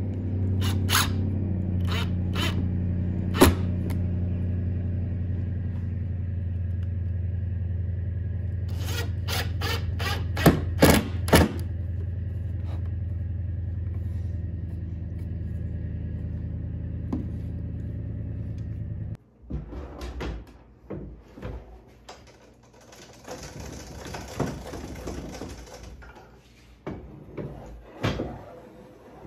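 A steady low machine hum, with sharp clicks and knocks over it, cuts off suddenly about two-thirds of the way through. After it come scattered knocks, a scraping hiss and a couple of thunks.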